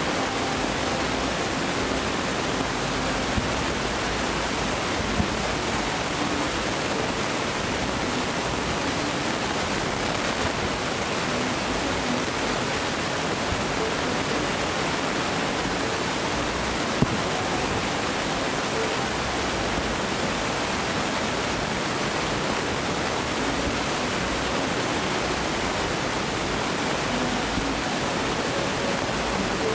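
Steady rushing noise with no firework bursts heard, and one faint click about seventeen seconds in.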